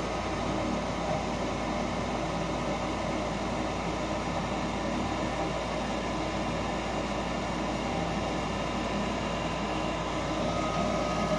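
Goodman gas furnace running steadily, its induced-draft blower motor humming and whirring. The blower runs only because its wires have been joined by hand, bypassing a failed control board that flashes a three-flash fault code.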